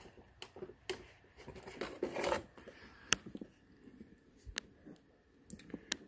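Scattered plastic clicks and scraping as the Roomba i7's dustbin is unlatched and pulled out of the robot, with a longer scrape about two seconds in and a sharp click about three seconds in.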